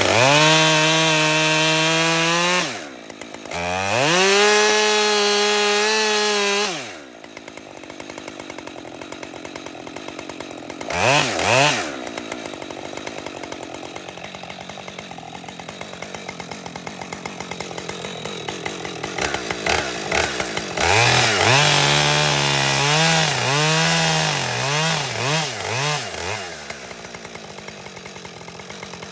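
Husqvarna 550 XP two-stroke chainsaw at full throttle twice for a few seconds each, then idling with a fast, even patter. It is blipped once, then revved up and down repeatedly near the end.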